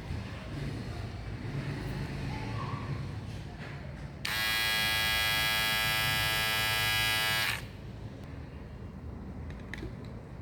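Wahl Detailer cordless trimmer switched on about four seconds in, running with a steady buzz for about three seconds, then switched off.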